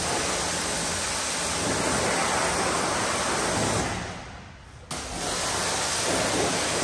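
Pressure washer wand spraying water into a car's door jamb: a steady hiss that fades out about four seconds in, then starts again abruptly about a second later.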